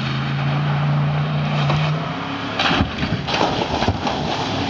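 Pickup truck engine running under power as the truck drives through deep mud. A steady engine note for the first couple of seconds gives way to rough, noisy bursts from about two and a half seconds in.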